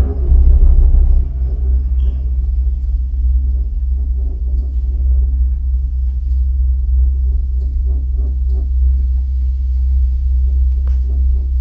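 Steady low rumble inside a moving gondola cabin as it travels along the cable, with a faint click near the end.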